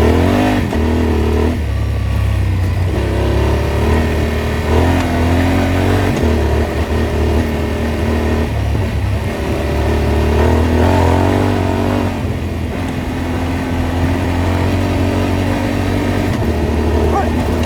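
Off-road vehicle engine running under load on a rough track, its pitch climbing and then dropping back every few seconds as the throttle opens and eases off, over a steady low rumble.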